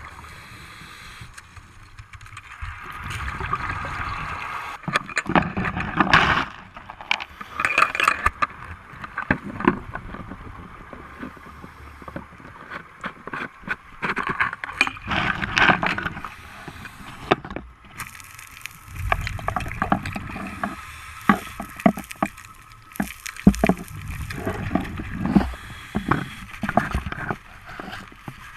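Underwater recording: irregular rushing and gurgling water noise that swells and fades every few seconds, with many scattered clicks and knocks.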